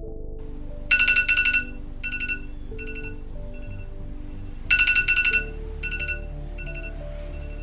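Phone alarm ringtone going off: a loud cluster of rapid bright beeps followed by softer repeats, the phrase coming round about every four seconds, over soft background music.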